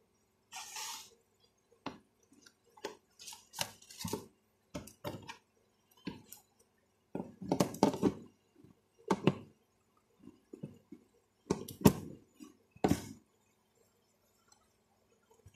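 A plastic food container of seasoned raw chicken being handled: a brief rustle, then irregular clicks and knocks as its plastic lid is pressed on and the box is set down and moved.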